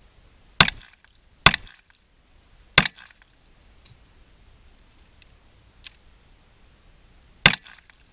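Sharp wooden knocks from the home-built target stand's 2x2 uprights and 2x4 base being handled: three in the first three seconds, a faint tap, then one more near the end.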